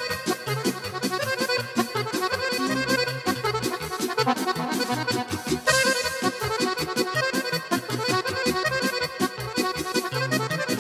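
Romanian wedding band playing an instrumental break between sung verses of a fast folk-dance song, with an accordion carrying the melody over a quick, steady beat.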